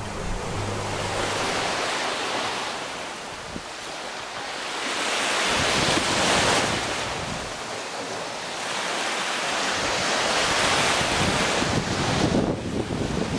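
Small sea waves breaking at the shoreline and washing up the beach, the hiss of the surf swelling and fading three times, about every four to five seconds.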